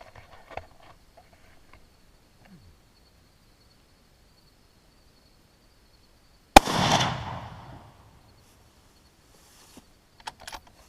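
A single rifle shot from a Remington 700 chambered in .243 Winchester, with its report trailing away over about a second and a half. It is the second shot of a sighting-in group at 100 yards.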